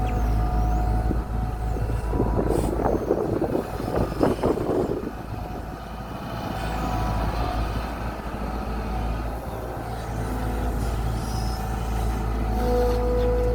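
Kobelco SK120 excavator's diesel engine running steadily, with a loud stretch of crunching and scraping from about two to five seconds in.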